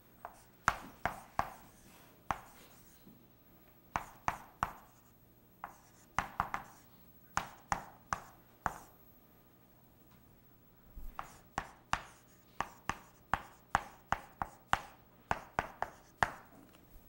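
Writing on a lecture board: bursts of irregular sharp taps and short scrapes as strokes are put down, with a pause of about two seconds in the middle before a longer run of taps.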